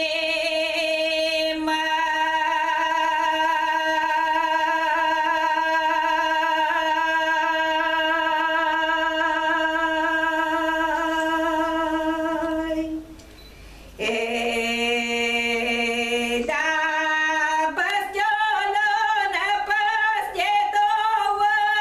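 A woman singing a traditional folk song unaccompanied. She holds one long note for about thirteen seconds, breaks off briefly for breath, holds a second note, and then moves into a more ornamented, wavering melodic line near the end.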